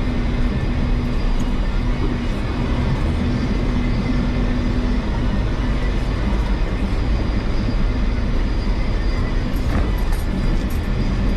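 Jeep Wrangler engine running steadily under load while crawling off-road, a dense low rumble with a faint tone that comes and goes in the first few seconds.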